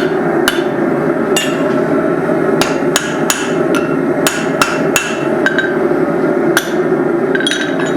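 Blacksmith's hammer striking a hot steel hammer head on the anvil: about a dozen sharp, irregularly spaced blows with a brief metallic ring, over a steady roar.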